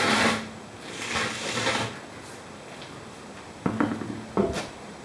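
Scraping handling noises followed by two sharp knocks, a little under a second apart.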